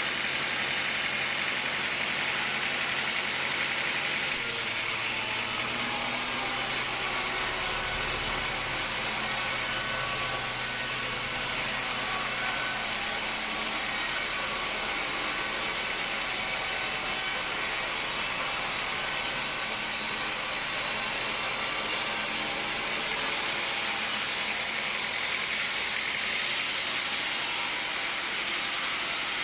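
Sawmill machinery running steadily: a continuous mechanical noise, with faint steady whining tones through the middle.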